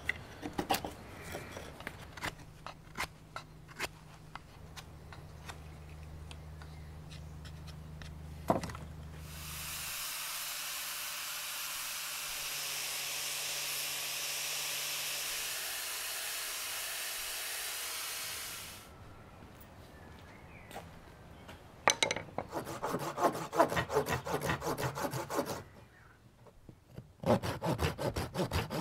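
Knife scraping and clicking as it carves a small piece of wood, then an angle grinder with a sanding disc running steadily for about ten seconds as the wooden plug is pressed against it. Near the end, a small hand saw cutting through the wood in quick rapid strokes, in two runs.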